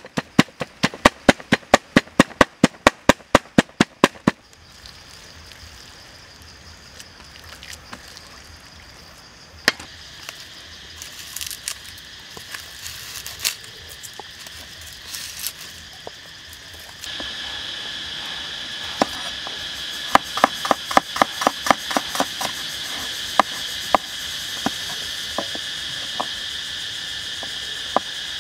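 Cleaver chopping rapidly on a wooden cutting board, about four to five strokes a second, mincing pork, stopping about four seconds in. Insects buzz steadily behind a few single knife cuts, the buzz growing louder around the middle, and quick cleaver chopping starts again about twenty seconds in, slowing toward the end.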